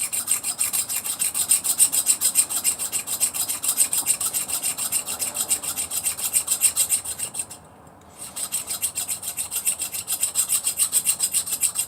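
Small hair clipper blade rubbed flat back and forth on an oiled sharpening stone to sharpen it, a rapid rasping at about five strokes a second. The strokes pause briefly a little before 8 seconds in, then start again.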